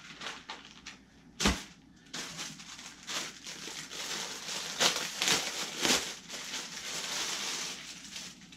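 Clear plastic packaging crinkling and rustling as lure packets are handled and pulled from a plastic bag, with a single sharp knock about a second and a half in.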